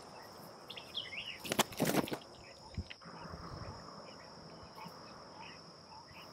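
A steady high-pitched insect drone with scattered small bird chirps. About one and a half to two seconds in, a few loud rustles as willow branches brush past while someone walks through them.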